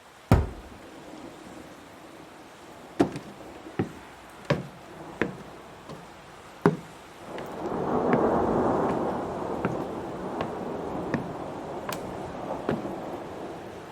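A door rattling and banging in its frame: six sharp knocks in the first seven seconds, unevenly spaced. Then a rush of noise swells up and slowly dies away, with a few lighter taps over it.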